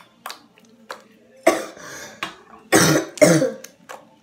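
A person coughs three times, the last two coughs close together and the loudest. Between them come a few light clicks from slime being patted and kneaded by hand.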